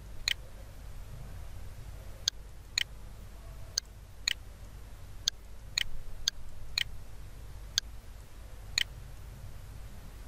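Computer mouse button clicking: about eleven short, sharp clicks, spaced half a second to a second apart, as the debugger's step buttons are pressed.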